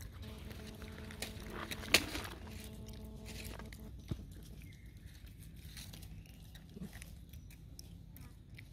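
Dry leaf litter crackling and rustling under monkeys moving and handling it, with scattered sharp clicks, the loudest about two seconds in. A steady hum of several tones runs through the first three seconds or so.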